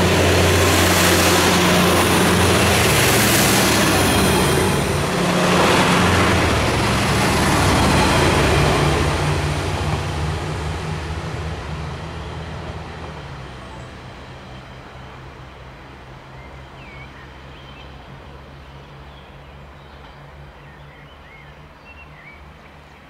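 Two-car DB Class 642 Desiro diesel multiple unit passing close by, its diesel engine running with a steady low hum over the rumble of wheels on the rails, swelling twice in the first few seconds. It then fades steadily as the train runs off into the distance, and birds chirp faintly near the end.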